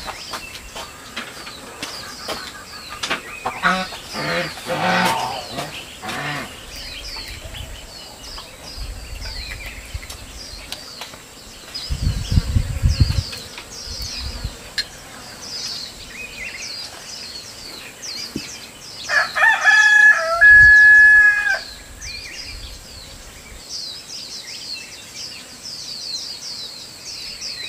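A rooster crows once, a long held call about twenty seconds in and the loudest sound, with chicken calls and clucking a few seconds in, over steady chirping of small birds. A brief low rumble comes about twelve seconds in.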